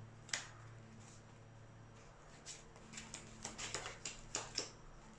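Sleeved trading cards handled on a table: one sharp click early, then a quick run of soft clicks and taps in the second half, over a low steady hum.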